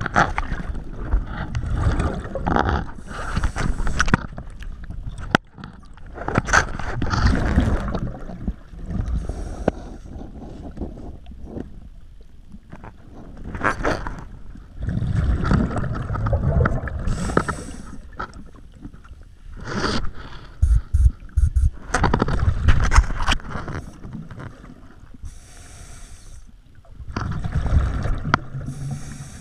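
Scuba diver's regulator breathing underwater in a cold lake under ice. Each breath is a short hiss on the inhale and a gurgling rush of exhaled bubbles, in a slow cycle about every seven or eight seconds.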